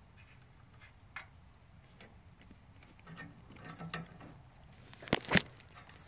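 Small clicks and taps of hands handling a meter's alligator test clip and leads on a microwave's high-voltage diode, with two sharp clicks close together about a second before the end.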